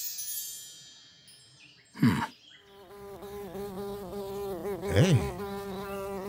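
Cartoon bee buzzing sound effect: a steady drone that wavers in pitch, starting about two and a half seconds in, with whooshes sweeping by at about two seconds and again at five. A twinkling chime fades out at the start.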